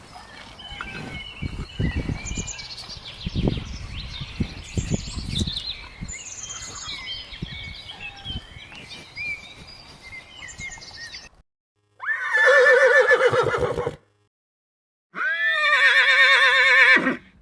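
Birds chirping over scattered low thumps for about eleven seconds, then after a short break a horse whinnies twice, each call about two seconds long with a wavering pitch.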